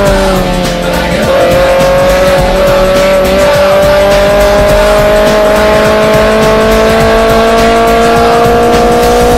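Race car engine held at high revs, heard onboard, its pitch dipping slightly about a second in, then climbing slowly and steadily as the car accelerates.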